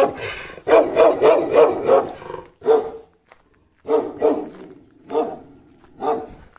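Large guard dog barking: a quick run of about five barks, then single barks roughly once a second.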